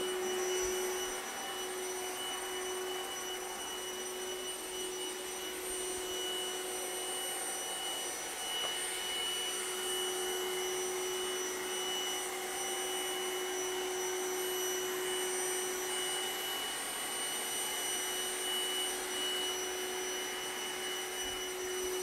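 Trifo Lucy robot vacuum cleaner running, a steady motor-and-fan hum with constant high-pitched whines.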